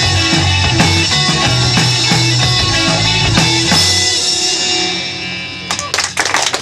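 Live rock band with electric guitars, bass and drums playing the last bars of a song, then letting the final chord ring out and fade after about four seconds. Audience clapping starts near the end.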